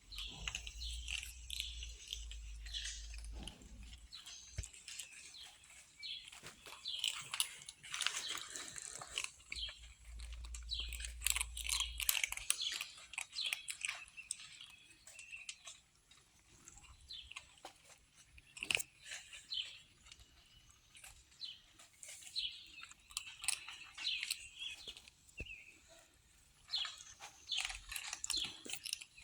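Kittens chewing and crunching, with many irregular crisp clicks and crackles, and a low rumble in the first few seconds and again about ten seconds in.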